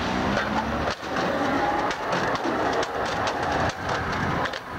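Amsterdam GVB articulated tram passing very close, its wheels running over the rails with a run of sharp clicks and clatter. A faint hum comes under it in the first second.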